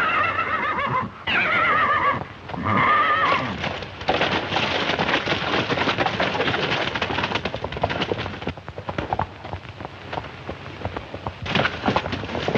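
Horse neighing: three shrill, wavering whinnies in the first few seconds. From about four seconds in come rapid hoofbeats, which thin out and then pick up again near the end.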